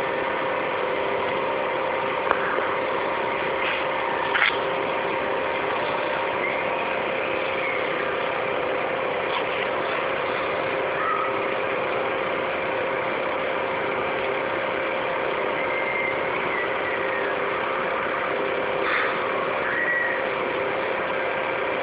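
Steady background hiss and hum with a few constant faint tones, broken by two short clicks about two and four and a half seconds in.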